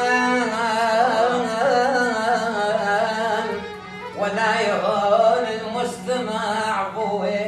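Ahwazi rural folk music: a richly ornamented melody line with vibrato over a steady low drone note, in two phrases with a short dip between them.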